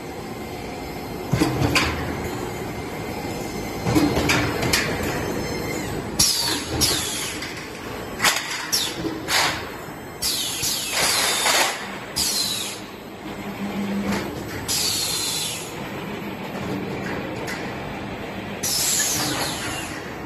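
Steel stud and track roll forming machine at work: repeated bursts of sheet metal clanging, with high, falling, screeching scrapes as steel pieces slide, and a low steady hum partway through.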